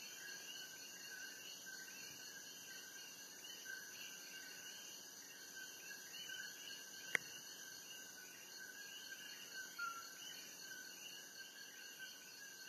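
Rainforest insect chorus: many insects trilling steadily at several high pitches at once. A single sharp click about seven seconds in, and a short falling note near ten seconds.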